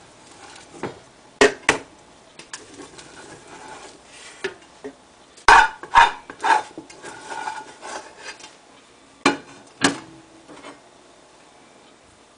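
A plastic rice paddle scooping freshly cooked rice out of a pot into a glass bowl. Sharp knocks of the paddle against the rims come in pairs about every four seconds, with soft scraping between them.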